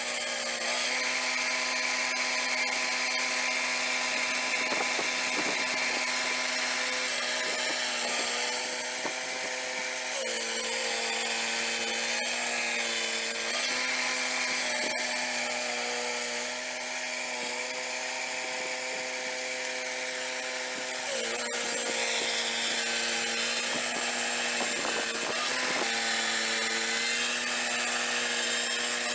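Swing-blade portable sawmill running: the small engine drives the circular blade through a log, with a steady engine note and the hiss of the cut. The engine's pitch drops about a third of the way in and shifts again about two-thirds of the way through as the blade works.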